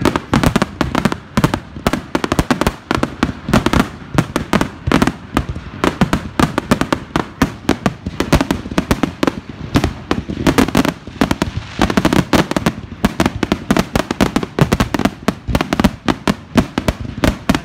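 Dense barrage of aerial firework shells bursting, sharp bangs and crackle following one another several times a second without a break.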